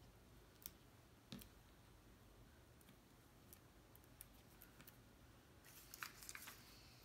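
Faint scattered clicks, then a quick cluster of crisp snips about six seconds in: small scissors cutting a square of foam mounting tape into strips.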